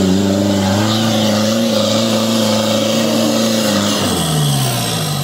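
Modified off-road jeep's engine revving hard and held at high revs as it climbs a steep mud bank, then the revs fall away about four seconds in.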